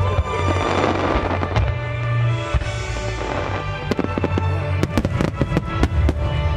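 Fireworks crackling and popping over music accompanying the display. A fizzing crackle fills the first couple of seconds, then a quick run of sharp pops and bangs comes from about four to six seconds in.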